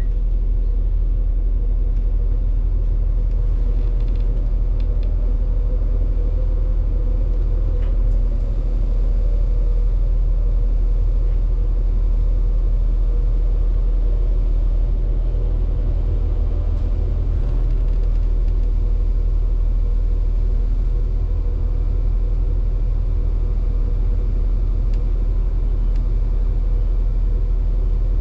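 Steady low rumble of the train's running engine and underfloor equipment, with a faint steady hum above it.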